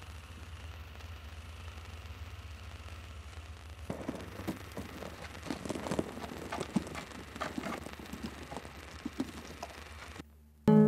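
Steady low hum with hiss, then from about four seconds in irregular light clicks and taps from the strings and pegs of a viola da gamba being handled. It drops out briefly near the end before a plucked string sounds loudly.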